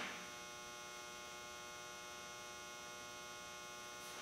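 Faint, steady electrical mains hum, a constant buzz made of many even overtones, unchanging throughout.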